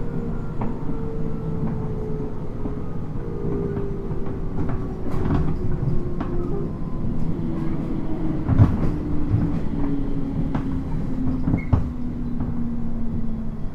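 Inside a 719 series electric train while it runs: a steady wheel and track rumble under a motor whine that falls steadily in pitch as the train slows. Scattered knocks and clacks come from the rails, whose rough track makes the ride noisy.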